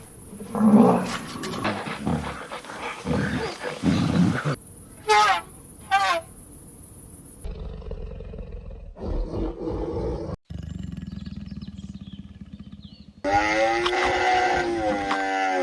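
A big cat roaring and growling several times in the first few seconds, followed by a string of other wild animal calls: two short pitched calls, a stretch of low rumbling, and a wavering pitched call near the end.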